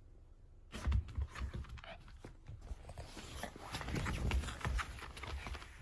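A small Pomeranian-Chihuahua mix dog stirring close to the microphone: a run of soft thumps and scuffling clicks starting just under a second in, with a breathy, noisy stretch in the middle.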